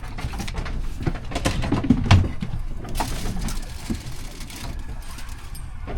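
Scattered knocks and clicks of food being prepared by hand, a knife and utensils at work, with a stretch of rustling about halfway through.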